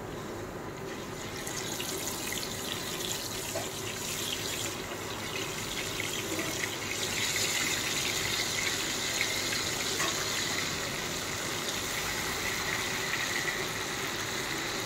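Masala-coated fish pieces deep-frying in a kadai of hot oil: a steady sizzle that starts about a second and a half in and grows louder about halfway through.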